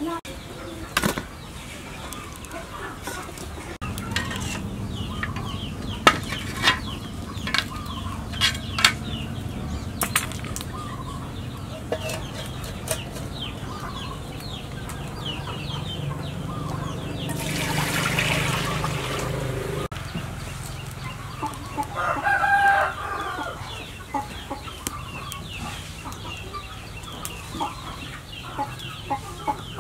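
Chickens clucking, with a louder call about three-quarters of the way through. Sharp knocks of a cleaver chopping on a board come at the start, and a rush of noise lasts about two seconds past the middle.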